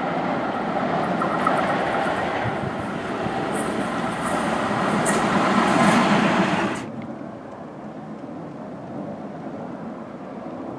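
PCC streetcar running past on the rails, loudest just before it cuts off suddenly about two-thirds of the way through, leaving a quieter steady outdoor hiss.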